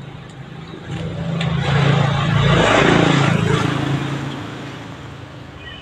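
A motor vehicle passing close by: its engine hum and road noise swell over about two seconds, peak near the middle, then fade away.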